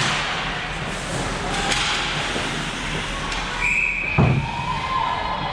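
Ice hockey play in a rink: sharp knocks of stick and puck, a couple of seconds apart, over steady arena and crowd noise. There is a brief high tone a little before four seconds and a drawn-out call near the end.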